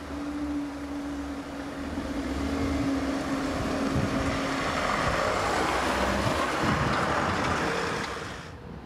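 Level crossing barriers lifting with a steady hum for the first half. Cars then drive across the crossing, their engine and tyre noise swelling and then cutting off sharply near the end.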